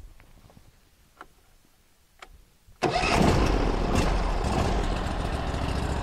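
A few faint clicks, then the portable sawmill's gasoline engine catches almost three seconds in and settles into a steady run on a little choke, starting easily.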